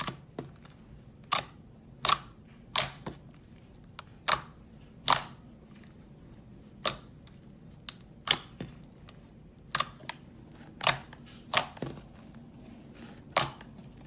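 Glossy slime being pressed and poked, giving sharp popping clicks as air pockets burst, about a dozen at uneven intervals.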